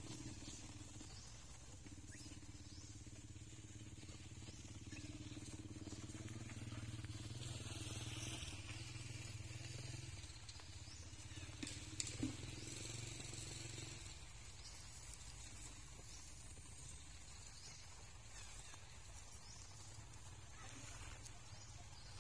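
Faint low engine hum that swells a little about eight seconds in and fades out about fourteen seconds in, with two short clicks shortly before it fades.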